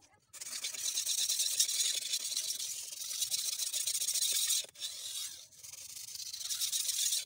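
Steel blade of a Pirge bullnose butcher knife stroked back and forth on a wet whetstone: a continuous gritty scraping that breaks off briefly about two-thirds of the way through, then starts again.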